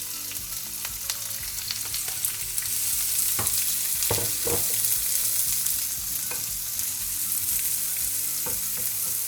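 Chopped onions sizzling in hot sesame oil with spluttering mustard seeds, a spoon stirring the pan. Sharp pops and scrapes sound now and then over the steady sizzle, a few louder ones about halfway through.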